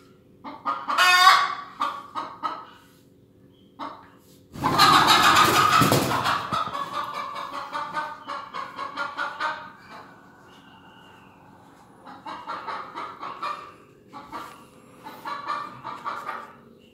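Hen clucking and squawking in bursts, with a loud flurry of wing flaps about four and a half seconds in as she jumps up.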